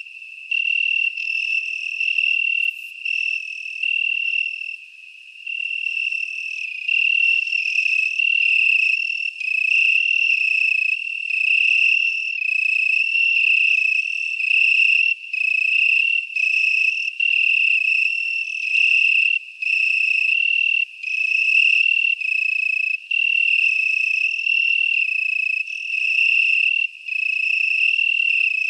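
A high, cricket-like insect trill on one steady pitch, coming in runs of about a second with short breaks between them.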